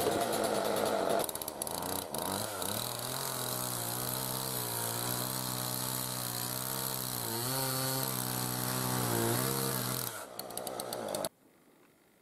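Two-stroke chainsaw sawing birch logs into rounds. It is loudest in the first second, then runs with a steady engine note that dips briefly a couple of times, and cuts off abruptly about a second before the end.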